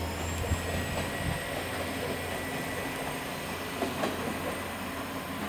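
KiHa 40-series diesel railcar pulling away. Its low engine drone fades about a second in as it recedes, with a few clicks of wheels over rail joints.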